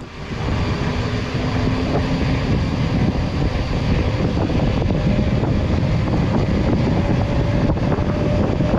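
Wind buffeting the microphone of a mountain biker's camera while riding, mixed with the rumble of the bike's tyres. It is a steady, loud rush that swells up within the first half second as the bike gets going.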